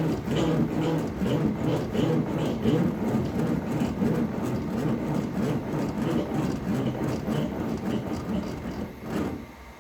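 A power tool running steadily on wood with a regular pulse about twice a second, stopping near the end.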